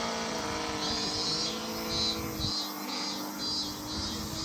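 Motor of a radio-controlled airplane in flight, holding a steady whine. A high pulsing insect buzz repeats about twice a second behind it.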